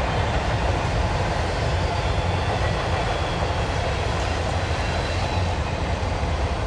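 Steady roar of water pouring over the Rocky Glen waterfall, a stepped limestone dam on Sawmill Creek, with a deep rumble under an even hiss.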